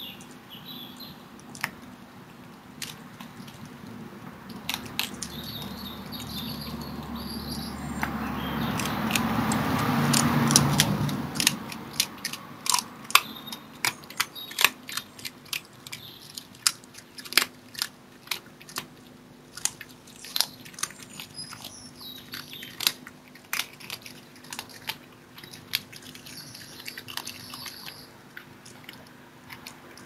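Red fox chewing and crunching meat close to the microphone: a run of sharp crunches and clicks through most of the second half, with birds singing faintly. Before that, a broad rushing noise swells up and then fades.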